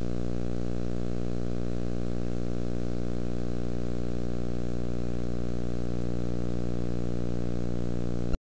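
Steady electrical hum with many evenly spaced overtones and a thin high whine above it, unchanging in pitch and level, cutting off abruptly near the end.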